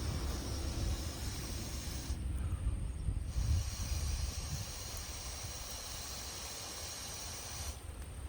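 Wood bonfire burning with a steady hiss over a low rumble. The hiss drops away for about a second a couple of seconds in, and again near the end.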